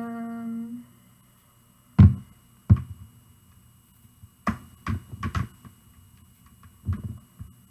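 A short hummed "mm" from a woman, then a run of sharp knocks and taps, the first one loudest, as a Samsung Galaxy S8 is pushed and pressed into a tight hard-plastic Speck case that it will not go into.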